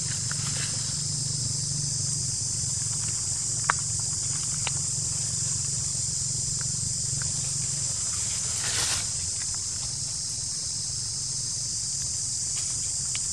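Steady high-pitched insect chorus over a low hum, with a few faint clicks, one sharp click about four seconds in, and a brief rustle about nine seconds in.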